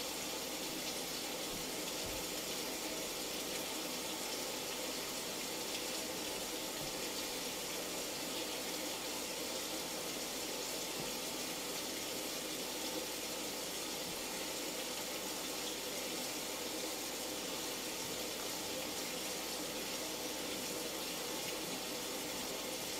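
Steady, even sound of falling rain, without a break.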